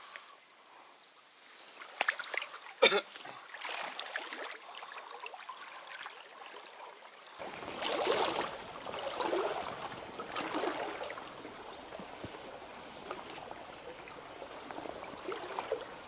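Shallow stream water trickling and splashing, at first faint. There are two sharp clicks about two and three seconds in. The water sound grows louder and fuller from about seven seconds in.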